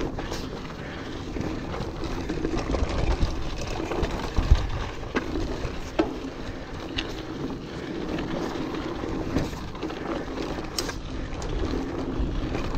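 Orbea Alma mountain bike ridden over a rocky trail: its tyres crunch over rock and gravel and the bike rattles, with sharp knocks from rock strikes several times. Wind rumbles on the microphone underneath.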